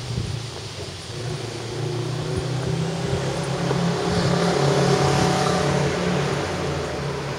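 A motor vehicle's engine passing, growing louder for about five seconds and then easing off.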